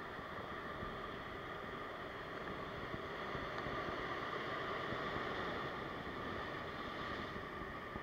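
Ocean surf washing and breaking over a rock ledge: a steady rush that swells slightly in the middle.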